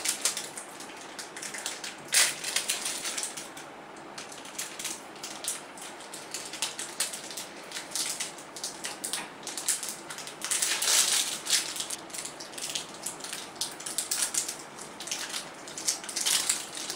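Nestlé Munch Nuts chocolate bar wrapper being torn open and peeled off by hand: irregular crinkling and crackling, busiest about eleven seconds in.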